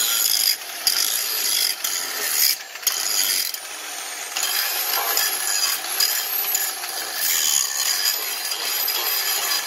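Electric angle grinder grinding rust off a steel axe head: a steady, high-pitched grinding hiss, with the motor's whine bending up and down as the disc is pressed in. It lifts off the metal briefly a few times in the first three seconds.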